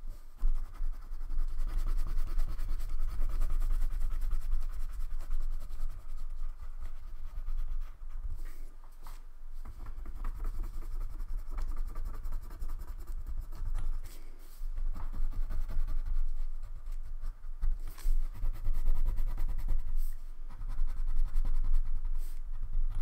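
Wax crayon rubbed rapidly back and forth on paper while colouring in, a dense scratchy scribbling broken by a few short pauses.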